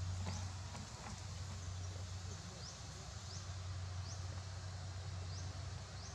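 Outdoor ambience: a steady low hum under a faint hiss, with brief high rising chirps repeated at uneven intervals, roughly one a second.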